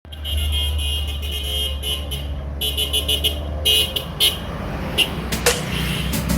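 Bus horns sounding over a bus engine's steady low running: one long blast, a second shorter one, then two quick toots, with a few sharp clicks near the end.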